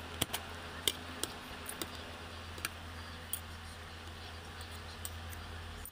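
Metal fork and spoon clicking and scraping against a plate as food is cut and gathered: a handful of short, sharp ticks in the first three and a half seconds, over a steady low hum.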